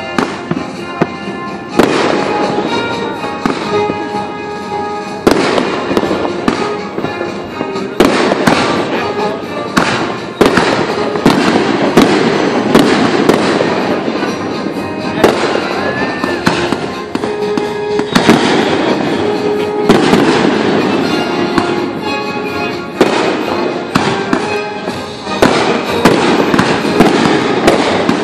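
Fireworks display: aerial shells bursting in quick succession, dozens of sharp bangs with crackling between them. It gets louder and denser from about ten seconds in.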